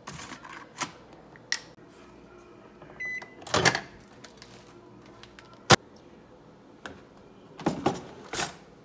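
A microwave oven beeps once and its door pops open with a clunk. A couple of seconds later comes a single sharp click, and near the end a kitchen drawer is pulled open with cutlery rattling.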